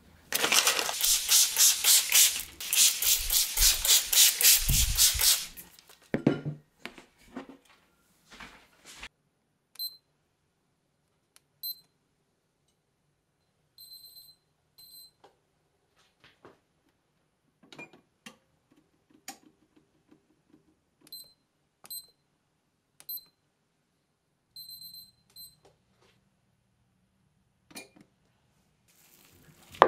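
Short electronic beeps from a Frigidaire oven's push-button control panel as its buttons are pressed, mostly single beeps with a few slightly longer ones. Before them, for the first several seconds, a loud rapid crackling rattle.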